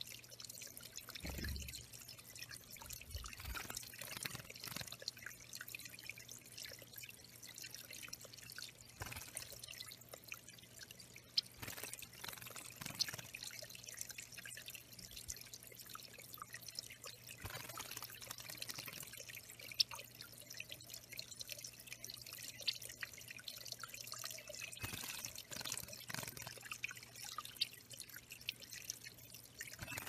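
Water trickling and dripping steadily into a shallow, stone-lined bird pond, with small splashes from a yellow-rumped warbler bathing in it. A few sharper drips or splashes stand out.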